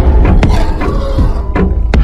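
Several sharp hits and thuds over a loud, deep rumble, with a hit about half a second in and two more near the end.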